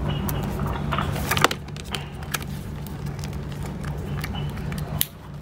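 Small cardboard product box handled and opened by hand: scattered crinkles, scrapes and taps of card and paper, with a sharp click about a second and a half in and another near the end, over a steady low hum.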